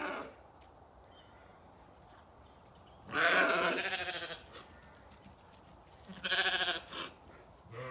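Zwartbles sheep bleating: a longer bleat about three seconds in and a shorter one near the end.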